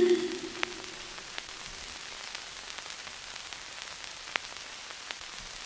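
Background music trailing off in the first second, then a steady hiss of recording noise with a few sharp, faint clicks.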